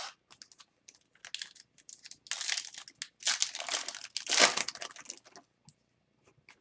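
Trading-card pack wrapper crinkling as it is handled, in several bursts over a few seconds, loudest in the middle.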